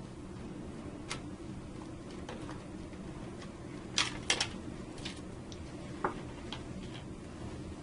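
A handful of light, scattered clicks and taps of a screwdriver and small metal parts on the circuit breaker's secondary mounting bracket, the sharpest pair about four seconds in, over a steady low hum.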